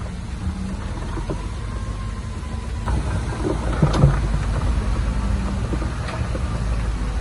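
Heavy diesel earthmoving machinery running steadily, with a cluster of clanks and knocks about three to four seconds in, the loudest near the four-second mark.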